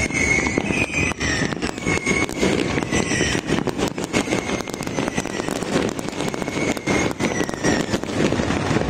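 Many fireworks and firecrackers going off at once: a dense, unbroken crackle of pops and bangs, with thin whistles from rising rockets.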